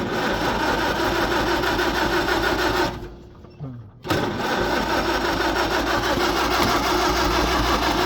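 Farmall H four-cylinder engine being cranked by its starter without firing: about three seconds of steady cranking, a roughly one-second stop, then cranking again. The engine turns over but will not catch.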